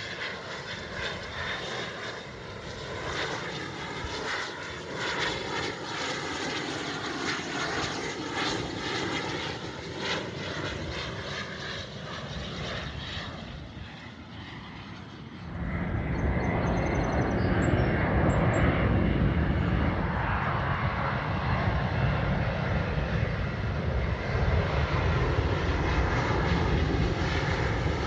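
Airliner's jet engines running as a plane passes, with a whine that glides in pitch. About halfway through, a much louder, deeper rumble comes in suddenly and holds.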